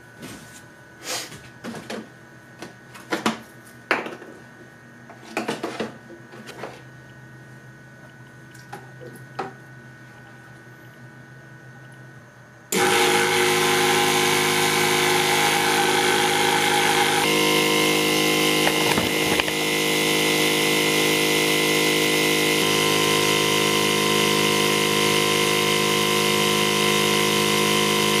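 A few light knocks and clicks of tubing and a plastic jug being handled, then about halfway through, a 12-volt DC water pump on a dual-stage filter switches on suddenly and runs steadily with a hum, pumping rainwater through the filters into a gallon jug. A few seconds after it starts, its tone changes slightly.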